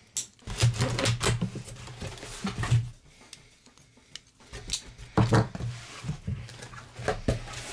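Small folding knife scraping and slicing packing tape on a cardboard mailer, with cardboard rubbing and clicks from handling the box; a quieter stretch about halfway through.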